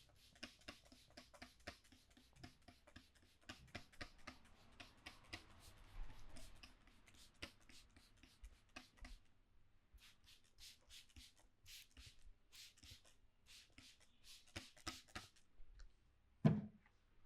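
Hands massaging a head: fingers rubbing and scratching through hair and scalp, a fast, irregular run of crisp rustling clicks that pauses briefly midway. Near the end comes a single much louder thump.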